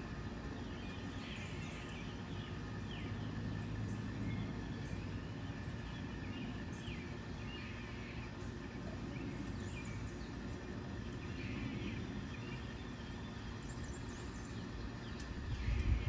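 Steady low outdoor rumble with faint, scattered bird chirps throughout; the rumble swells louder right at the end.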